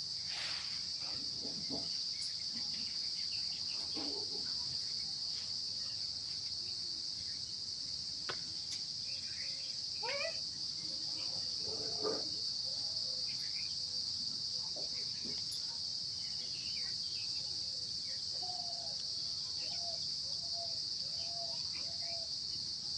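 A steady, high-pitched insect chorus, crickets by their sound, drones on without a break, with faint scattered chirps and a few light clicks beneath it.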